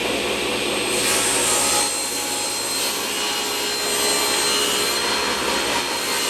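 Table saw running steadily, its blade cutting through wood.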